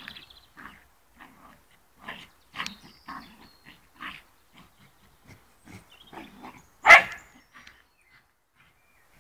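Fox terrier giving a string of short barks and other vocal noises while playing with a ball, with one loud sharp sound about seven seconds in.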